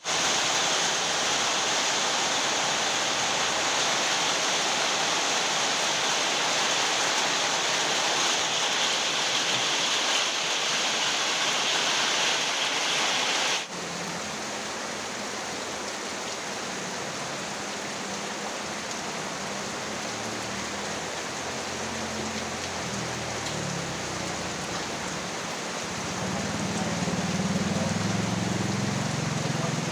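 Very heavy rain pouring in a steady hiss. About halfway through it cuts abruptly to a softer, duller downpour with a low, wavering rumble underneath that swells near the end.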